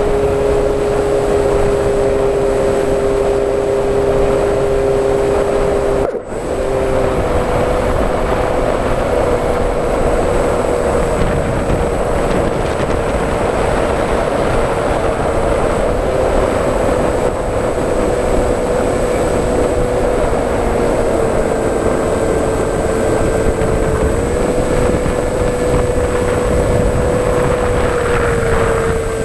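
Electric motor and propeller of an FPV model aircraft humming steadily in flight, its pitch stepping up and down with throttle changes, over heavy wind noise. The sound drops out briefly about six seconds in.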